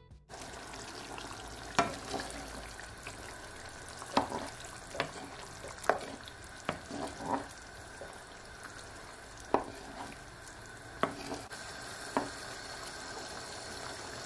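Curry chicken wings simmering in thick gravy in a wok, hissing steadily, while a wooden spoon stirs them and knocks against the pan about nine times at irregular intervals.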